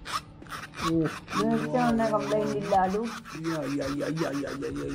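Leather bifold wallet handled close to the microphone: fingers rubbing and scraping over the leather and through its card slots in a run of short, scratchy strokes. A person's voice sounds underneath from about a second in.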